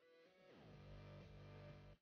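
Faint background music: sustained guitar notes, with one note sliding down in pitch about half a second in.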